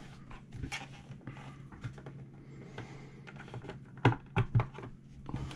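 Plastic enclosure of a Toshiba Canvio external hard drive being pried and handled with plastic pry tools: scattered light clicks and taps of plastic on plastic, with three louder clicks about four seconds in. A low steady hum sits underneath.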